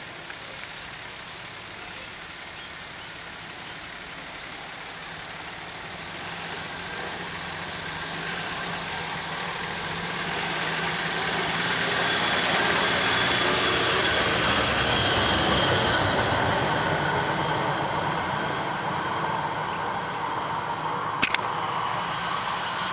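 Dodge Ram hi-rail pickup truck running along the track on its rail guide wheels, its engine and steel wheel-on-rail noise with steady high ringing tones. It grows louder as it comes up and passes about halfway through, then fades. A sharp click sounds near the end.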